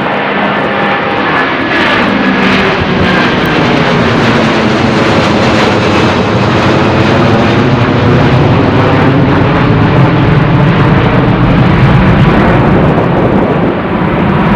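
Jet airliner taking off at full thrust and passing close by: a loud engine roar with whining tones gliding in pitch, and a deep rumble building toward the end.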